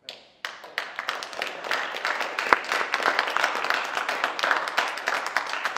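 A small group applauding, the clapping starting abruptly and filling out within the first second, with one sharper, louder clap about two and a half seconds in.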